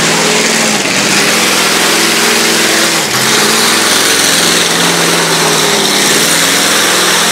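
Car engine running loudly and revving, its pitch rising and falling, over a dense steady hiss.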